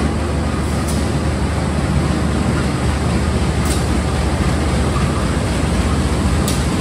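KAI CC201 diesel-electric locomotive hauling a parcel train and rolling slowly into the station. It gives a steady, loud engine rumble mixed with wheel-on-rail noise, with a few faint clicks from the wheels.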